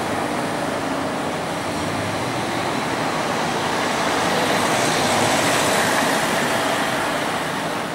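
Slow street traffic at close range: car engines and tyre noise on a cobbled street, with a vintage electric tram coming up behind the cars. The sound swells a little about five to six seconds in as a car passes near.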